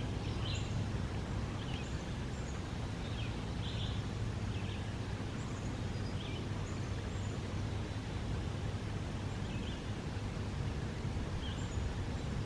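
Outdoor ambience: a steady background hiss and low hum, with short bird chirps scattered throughout.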